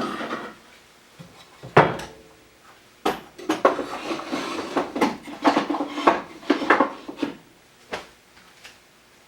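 Clatter of hard objects being handled and set down: a run of irregular knocks on wood, some with a brief metallic ring, thickest in the middle and tailing off near the end.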